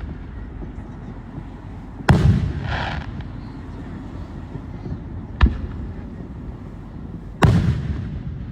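Aerial fireworks going off: three sharp booms, about two, five and a half and seven and a half seconds in, each followed by a short rumbling echo.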